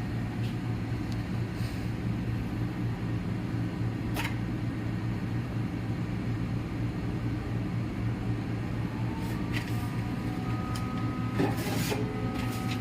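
Steady low electrical hum of running lab equipment, with one sharp click about four seconds in. Steady higher tones join in over the last few seconds.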